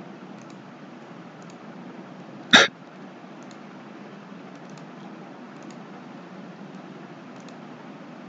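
Steady low hiss of a microphone's background noise, with faint clicks of a computer mouse now and then. About two and a half seconds in comes one short, sharp noise, much louder than the rest.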